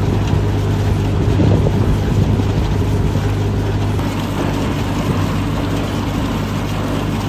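Log-peeling (debarking) machine running, a steady low hum with rough machinery noise over it as it strips bark from straight logs.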